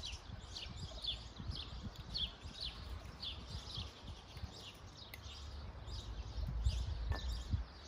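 A bird chirping over and over in short, quick falling chirps, two or three a second, fewer near the end. Under it are soft, irregular low thuds, like footsteps walking in place.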